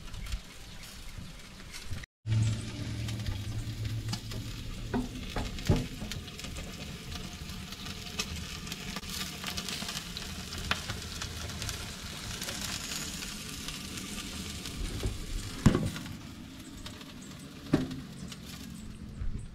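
Jerk chicken sizzling on a charcoal-fired drum grill: a steady sizzle with small crackles. The sound drops out briefly about two seconds in, and two sharp knocks come near the end.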